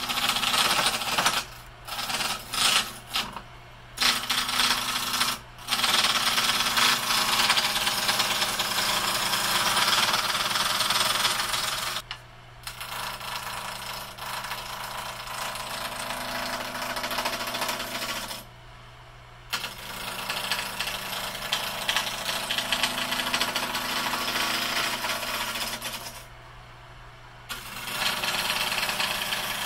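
Wood lathe running with a turning gouge cutting a wooden spindle blank: the motor hums steadily under a loud hiss and rasp of cutting. Short cutting passes early on give way to longer passes, broken three times by brief pauses where only the spinning lathe is heard.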